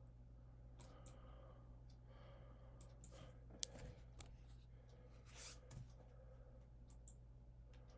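Near silence: room tone with a steady low hum, a few faint rustles and clicks, and one sharper click about three and a half seconds in.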